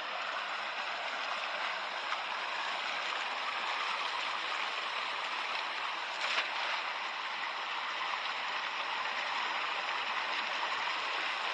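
Steady rush of muddy water flowing along a concrete drain, with a short splash about six seconds in as a thrown cast net hits the water.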